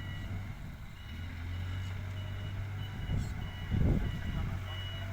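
Backhoe loader's reversing alarm beeping steadily, a little under two beeps a second, over its diesel engine running. A heavy low thump about four seconds in.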